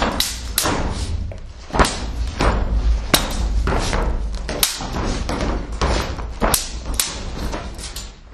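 Steel sabre blades, a sabre and a Cossack shashka, clashing again and again in a staged sword fight, in quick irregular strikes about two a second. Heavy footwork thumps on the stage boards under the strikes.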